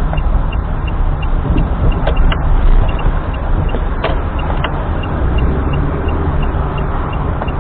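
Steady rumble of a car driving on the road, engine and tyre noise, with a few faint clicks.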